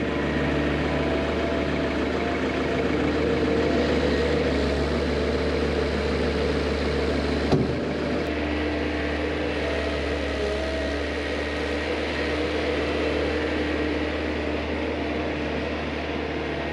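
A vehicle engine running steadily, with a single sharp knock about halfway through.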